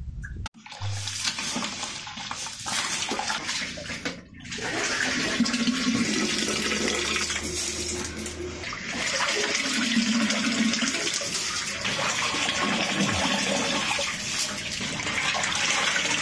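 Water splashing and running off as washed rice is scooped out of a steel pot of water with a metal strainer ladle and drained; the sound grows louder and steadier about four seconds in.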